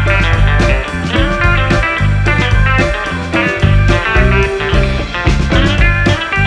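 Background music: a blues-rock track led by electric guitar, with bass and drums keeping a steady beat.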